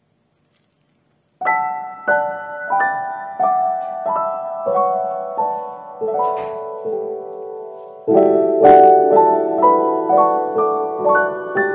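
Background piano music: a slow melody of single struck notes, starting about a second and a half in. The melody steps down through the first half and climbs again near the end.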